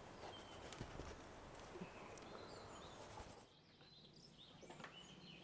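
Near silence: a faint outdoor background hush with small birds chirping faintly now and then.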